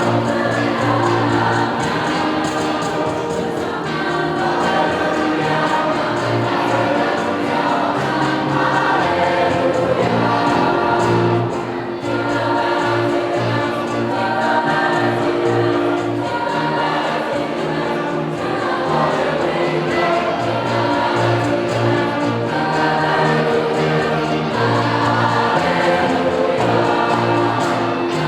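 High-school choir singing in parts, over steady held low notes.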